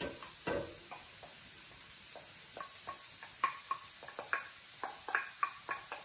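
Onions and carrots sizzling in olive oil in a frying pan as sliced mushrooms are tipped in from a glass bowl. The sizzle is a steady hiss, and from about halfway through a quick run of short clicks and knocks comes as the slices land and the bowl is worked over the pan.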